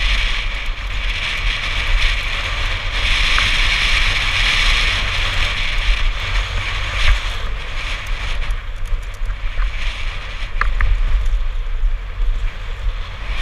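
Wind buffeting a head-mounted action camera's microphone as a mountain bike descends at speed, over the steady hiss and occasional clicks of the tyres rolling on a dry dirt and gravel trail.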